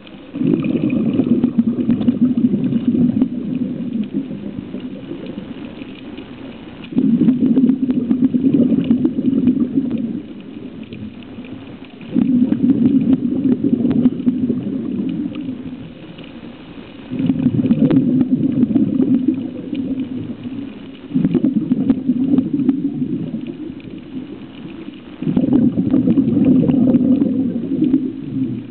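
A scuba diver's exhaled bubbles rumbling out of the regulator underwater in six long bursts, roughly every five seconds, with quieter stretches between as the diver breathes in.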